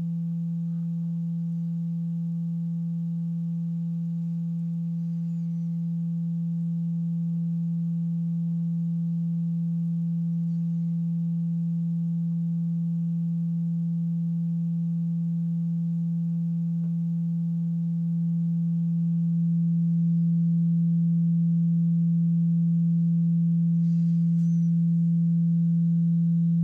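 Steady low pure tone, the sine-wave drive signal of a cymatic vibration rig, growing louder in steps about five seconds in and again near eighteen to twenty seconds in.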